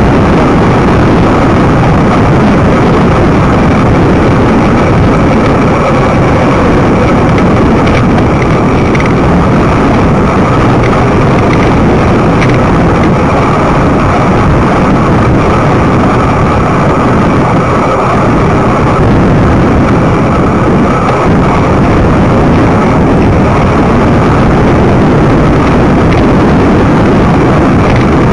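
Loud, steady wind rumble on the microphone of a camera riding on a moving road bicycle, with a faint hum of tyres on the road.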